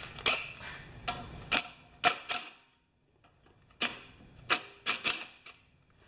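Sharp metallic clicks and clacks, about nine of them at irregular intervals with a short pause in the middle, from a 10 mm socket on a long extension being fitted and knocked against the generator's bolts and housing.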